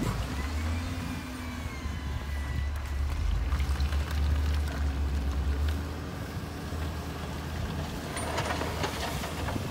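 Heavy diesel earthmoving machine's engine running, a steady low rumble that swells and eases, with rougher rushing noise building near the end.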